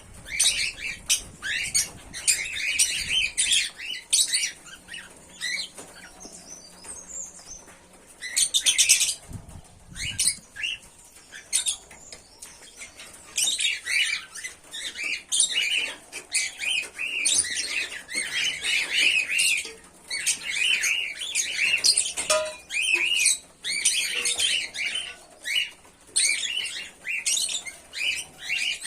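Pearl cockatiels chirping: dense runs of short, quick calls, quieter for a few seconds early on and then busy again.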